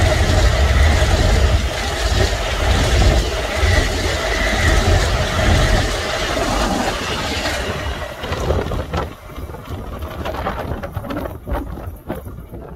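Twelve-car Kawasaki M9 electric multiple-unit train passing through the station at speed: a loud rush of steel wheels on rail with a steady whine, fading away about eight seconds in as the last cars go by.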